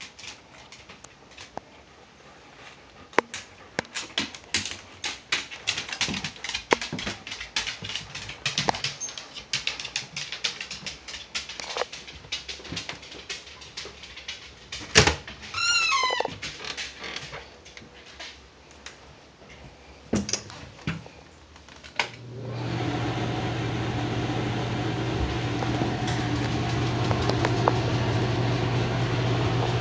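Footsteps and rustling through clutter, then a doorknob clunks and a door hinge gives a short creak that slides down in pitch as a door swings open. About 22 seconds in, a bathroom exhaust fan switches on and runs with a steady, louder hum.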